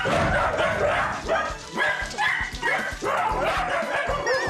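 Several dachshunds barking and yipping over one another without a break, a loud, overlapping chorus of the whole pack set off at once.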